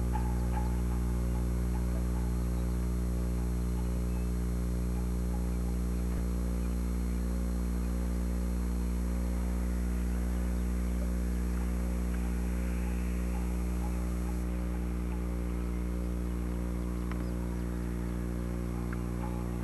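Steady electrical hum with many overtones on an old VHS recording, unchanging throughout, masking any faint outdoor sound.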